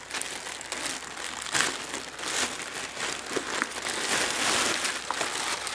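Clear plastic packaging bag crinkling as hands handle a fabric diaper bag and pull it out of the wrapper, with a few sharper crackles.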